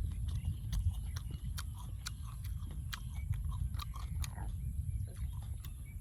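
A person chewing food close to the microphone: frequent short wet clicks and mouth smacks at an irregular pace, over a steady low rumble.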